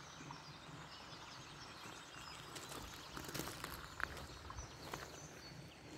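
Small birds chirping and twittering, faint, over quiet outdoor ambience, with a few soft footsteps on the mat path in the second half.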